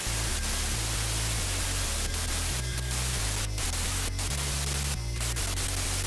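Steady hiss of an air spray gun applying rust-proofing undercoat to a car's underbody, cutting out briefly a few times as the trigger is let go, over background music with a bass line.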